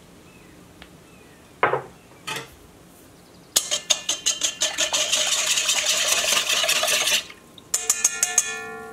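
A wire whisk beating a thin milk-and-egg mixture in a stainless steel bowl: rapid clinking of the wires against the steel for a few seconds. Then a few sharp taps of the whisk on the bowl, which leave it ringing.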